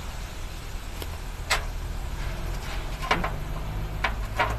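A low, steady engine hum in the background, with several short, sharp clicks over it; the loudest come about a second and a half in, about three seconds in, and near the end.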